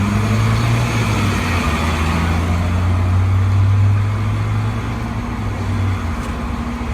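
Rollback tow truck's engine running at raised speed, a steady low drone that eases off about six seconds in.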